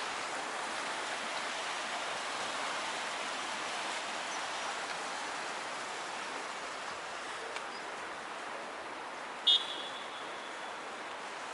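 Steady outdoor street noise of road traffic, fading slightly. Near the end comes a single sharp, high-pitched metallic ping that rings briefly and dies away.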